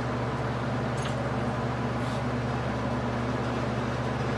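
Machine-tool spindle and motor running steadily at about 600 rpm, a constant low hum, with a faint tick about a second in.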